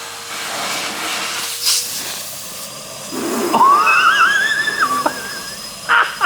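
Henry (Numatic) vacuum cleaner running with a steady hiss, its hose sucking at a taped-off hole in a steel bike frame to draw a string through the down tube for the dropper cable. About halfway through, a high wavering whistle rises and warbles for about a second, then breaks off.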